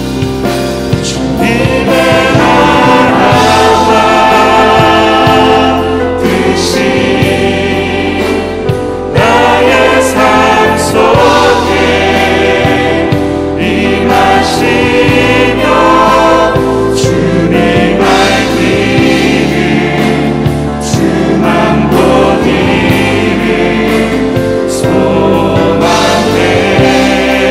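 A mixed group of women and men singing a Korean worship song together, accompanied by acoustic guitar and other instruments with a steady low bass.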